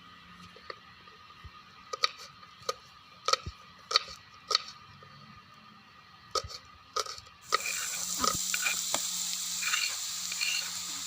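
A spoon or utensil knocks and clinks against a pan or bowl several times. About two-thirds of the way in, a loud sizzling hiss with small pops starts suddenly: cimol tapioca dough frying in oil.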